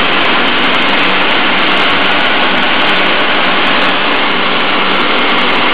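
Industrial sanding machine running, a loud, steady, even noise with a faint low hum underneath.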